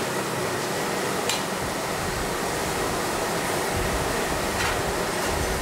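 Noodles stir-frying in a wok over a gas burner: a steady hiss from the flame and the frying, with a metal spatula clinking against the wok twice, about a second in and again near the end.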